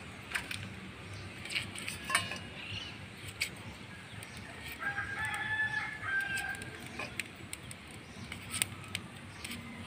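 A rooster crows once about halfway through. Short clicks and scrapes of a small knife peeling potatoes are heard throughout.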